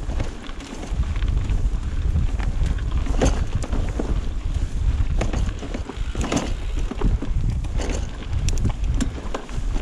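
Wind buffeting the microphone of a handlebar-mounted camera on a mountain bike riding a rough dirt trail, with scattered clicks and knocks from the bike rattling over bumps.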